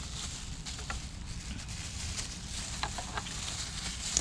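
Faint scattered clicks and light taps of small parts and tools being handled, over a steady low hum and hiss.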